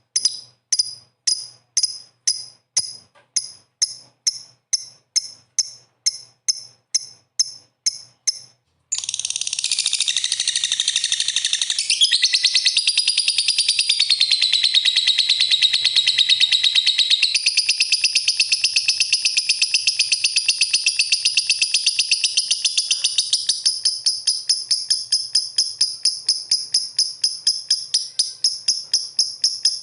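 Lovebirds calling: sharp, high chirps repeated about three a second, then a sudden change about nine seconds in to a dense, continuous shrill chatter, which breaks back up into rapid repeated chirps near the end.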